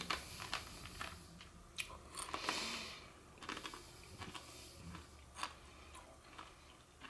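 A person biting into and chewing a hard, crunchy puffed snack shaped like a chicken drumstick: a string of sharp, irregular crunches, with a longer grinding crunch about two seconds in.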